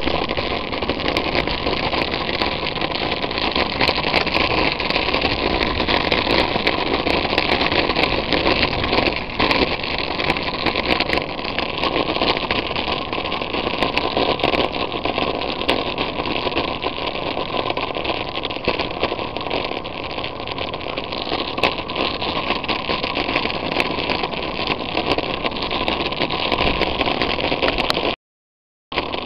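Steady rushing noise of a ride along a paved lane, wind and rolling noise on the microphone, with faint scattered clicks. It cuts out for under a second near the end.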